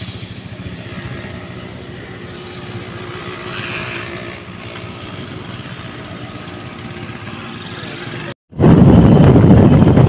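Small single-cylinder Honda motorcycle engine running steadily. After a sudden break about eight and a half seconds in, loud wind buffeting the microphone.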